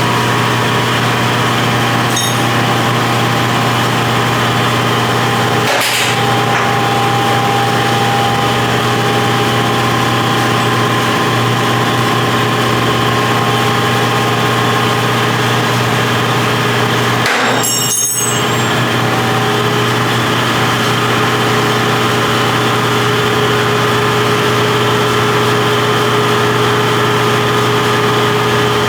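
Steady mechanical running noise from an engine or motor, even in level, with a low hum and steady tones. There are brief breaks about six seconds in and again near eighteen seconds.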